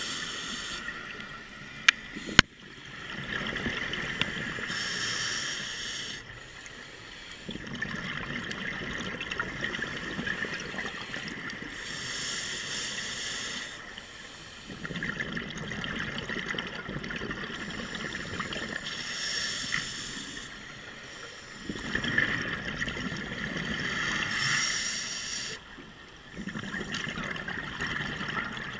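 Scuba diver breathing through a demand regulator underwater, about four slow breaths: each a hiss of inhaled air followed by a longer stretch of bubbling as the exhaled air vents. Two sharp clicks about two seconds in.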